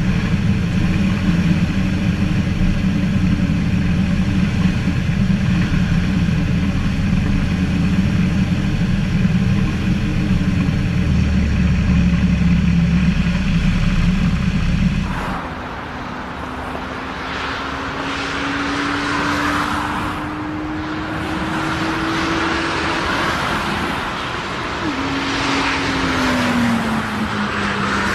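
Aircraft engine noise: a loud, steady low rumble, then an abrupt change about halfway through to a thinner engine sound whose whine slowly rises and then falls near the end.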